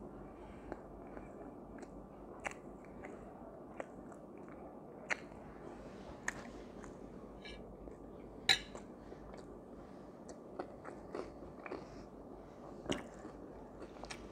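A man chewing and biting bread and falafel salad, with scattered sharp clicks and crunches over a faint steady background, the loudest about halfway through.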